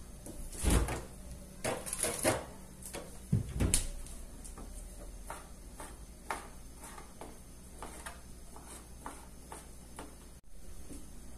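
A few loud knocks and clatters, like kitchen cupboard doors or drawers being shut. These are followed by light, even taps, about three a second, of a knife cutting sausage on a plastic cutting board.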